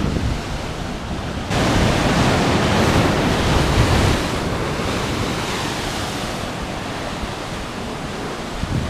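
Heavy sea surf breaking and washing over rocks, with wind buffeting the microphone. The rush jumps suddenly louder about a second and a half in, then eases off gradually.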